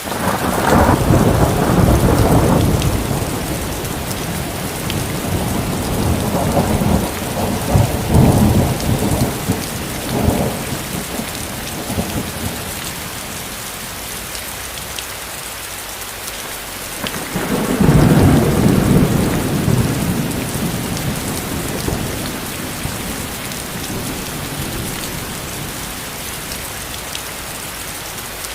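Steady rain falling throughout, with rolling thunder: a long low rumble at the start, a cluster of rumbles about a quarter of the way in, and another strong rumble about two-thirds through.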